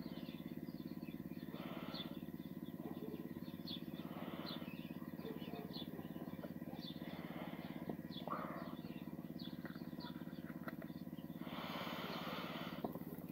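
A steady low hum runs throughout, with faint short bird chirps scattered through it. Near the end comes about a second and a half of hissing noise.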